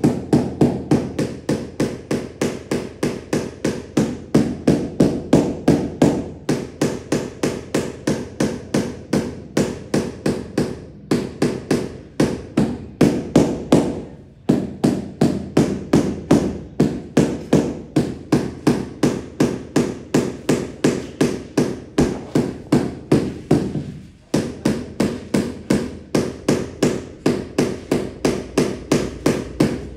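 Rapid, steady hammer blows, about three a second, with a few short breaks. The work is floor tiling: tiles being tapped in or the floor being chipped and prepared.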